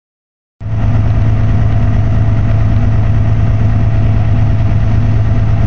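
An engine idling with a steady, loud low hum, starting about half a second in.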